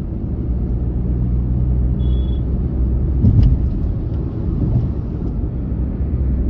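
Steady low rumble of a car's road and engine noise heard from inside the moving car, with a brief high beep about two seconds in.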